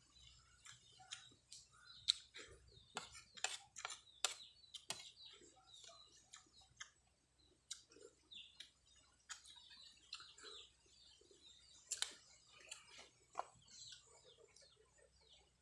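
Faint close-up eating sounds: chewing with mouth clicks and smacks, many short sharp clicks at irregular intervals.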